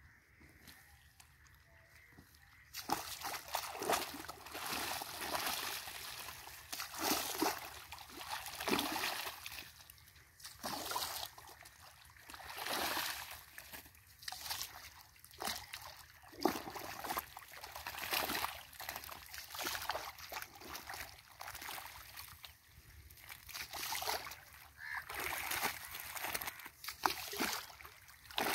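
Irrigation water splashing and sloshing in an earthen field channel while a hoe scrapes and slaps wet mud, banking up the channel to shut off a filled wheat plot and send the water on to the next. It starts about three seconds in and comes in irregular surges.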